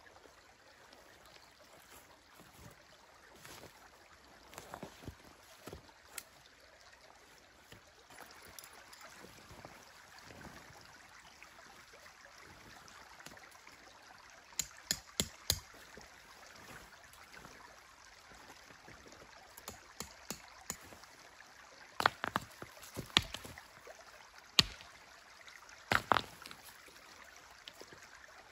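Faint steady trickle of a stream. Over it come scattered sharp clicks and knocks from a canvas tent being pitched on stony ground: a quick run of four clicks about halfway through, and a few louder knocks near the end.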